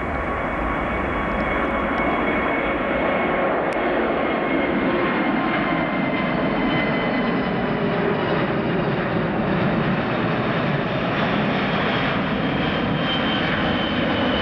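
Airbus A380's four Rolls-Royce Trent 970 turbofans at climb-out power as the airliner passes overhead after takeoff. It is a loud, steady jet roar with a faint whine, building over the first couple of seconds and then holding.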